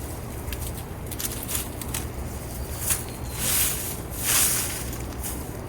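Rustling and scraping of digging through garden soil for potatoes, with a few short hissing sweeps about three and four seconds in.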